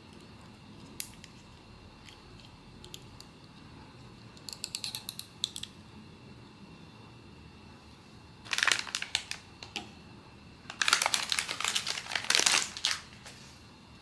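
Blind-box packaging crinkling and crackling as it is handled and opened, in three bouts. The last bout, about eleven seconds in, is the loudest and longest.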